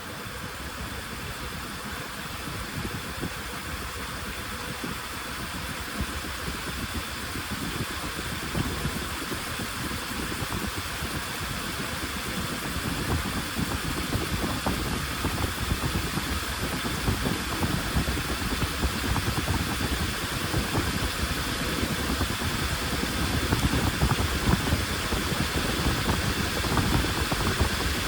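Washing machine running: a steady mechanical rumble and whir that grows gradually louder.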